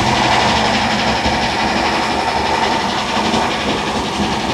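The gasoline V8 of a 2001 Workhorse P42 step van running with the throttle opened a little, a steady, dense mechanical noise. The engine has a random misfire (code P0300), with cylinder 3 showing the most misfire counts.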